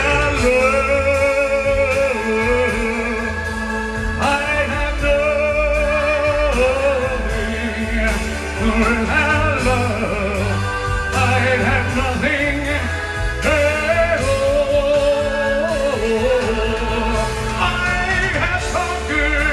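Singing over a band backing track, the melody held in long notes with vibrato.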